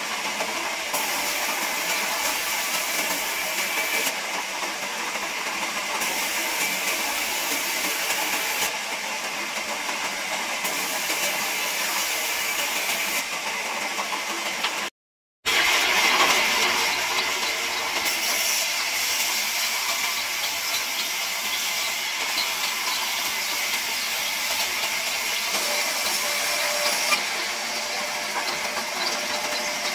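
Large vertical band saw running and sawing through timber: a steady, hissing rasp of the blade in the wood over the machine's drone. It cuts out for a moment about halfway through, then carries on.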